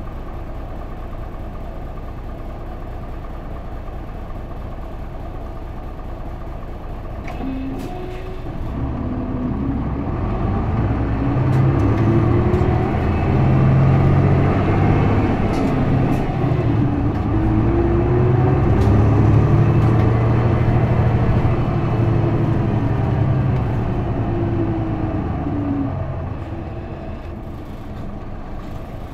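Isuzu Erga city bus's straight-six diesel heard from inside the passenger cabin: idling steadily, then about eight seconds in a few clicks and the engine pulls away under load, its pitch rising and falling twice as the manual gearbox takes it up through the gears, before easing back down near the end.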